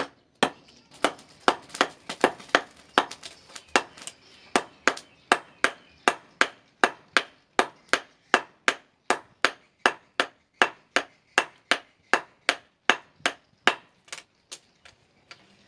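Hammer striking the knife blank on an anvil in a steady rhythm, about two and a half blows a second, each a sharp ringing strike. The blows stop near the end, leaving a few lighter taps.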